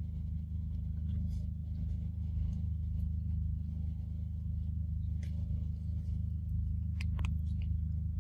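A steady low hum runs throughout, with a few faint short clicks and chirps over it, a pair of them about seven seconds in.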